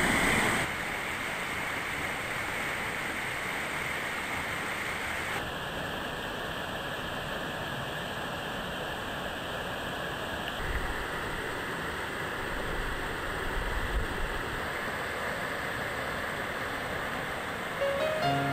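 Mountain river flowing over rocks: a steady rushing hiss of water. Music starts near the end.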